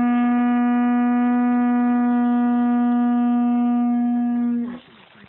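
Conch shell trumpet blown in one long, steady note at a single pitch, which sags slightly in pitch and stops near the end.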